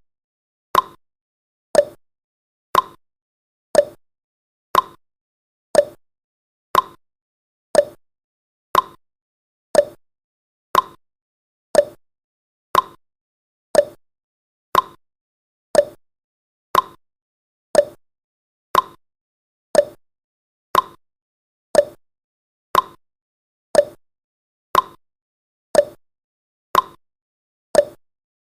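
Countdown timer's tick sound effect: a short, sharp click once every second, alternating between a slightly higher and a slightly lower tone like a clock's tick-tock.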